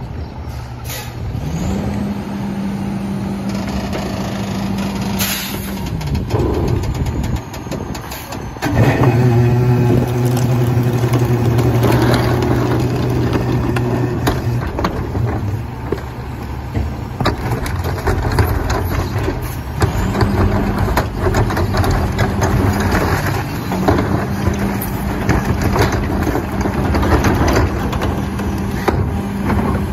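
Autocar WX garbage truck's diesel engine and Heil PowerTrak rear-loader hydraulics running while the packer cycles. The engine steps up to a higher steady speed about a second and a half in and again about twenty seconds in, and runs loudest from about nine to fourteen seconds. Carts and trash knock and clatter against the hopper as they are tipped.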